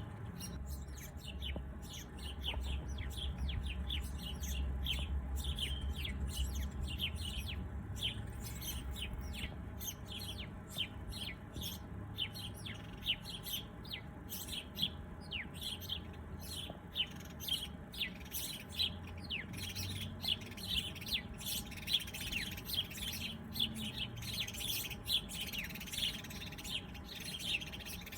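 Small birds chirping in a dense chorus of quick, high, down-sweeping chirps, with a low rumble underneath.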